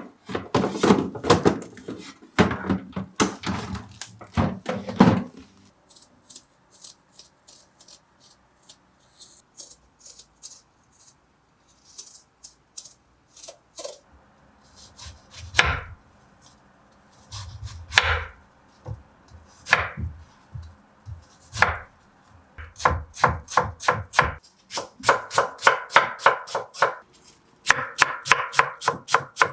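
Kitchen knife chopping on a cutting board, in runs of quick strokes with pauses between them and a fast, even run near the end.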